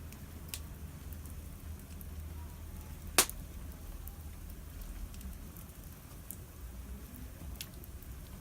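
Campfire crackling, with scattered small snaps and one loud pop about three seconds in, over a low steady rumble.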